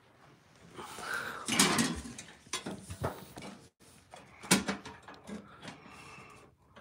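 Clunks and scraping of a flat steel plate being fitted by hand against the side of a mower deck, with a few sharp metal knocks, the loudest about four and a half seconds in.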